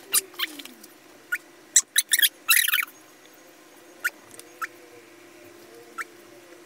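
Irregular sharp taps and clicks of a pen on a tablet's glass screen, a few single taps with a quick run of taps about two and a half seconds in.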